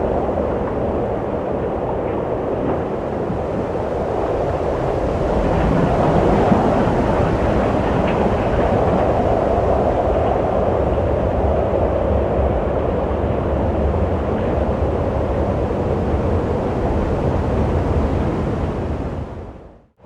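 Steady rushing wind with a deep low rumble, swelling a little several seconds in, then fading out almost to nothing right at the end.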